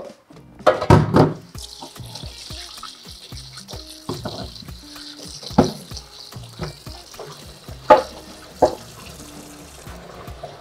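Water running steadily from a tap as uziza leaves are rinsed, over background music, with a few sharp knocks along the way.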